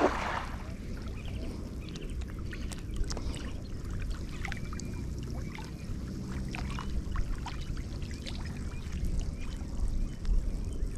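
Water splashing briefly at the start, then trickling and lapping under a low rumble, with scattered small clicks and a few faint short chirps.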